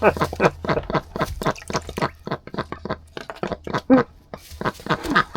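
Ducks dabbling and splashing their bills in a water container: a fast run of short, wet clicks and splashes.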